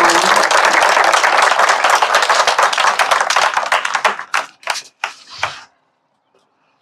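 A seated crowd of adults and children applauding. Dense clapping thins to a few last separate claps between about four and five and a half seconds in, then stops.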